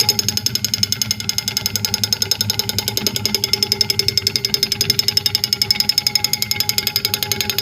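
Toy woodpecker pecking its way down a metal pole made from a child's bicycle axle: rapid, even tapping with a metallic ring.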